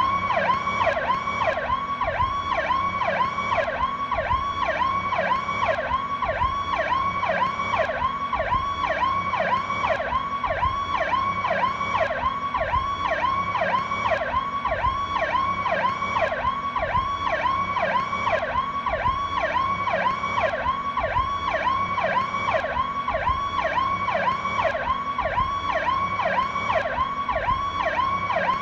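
Powercall electronic police siren in a fast yelp, its pitch sweeping up and down about twice a second without a break.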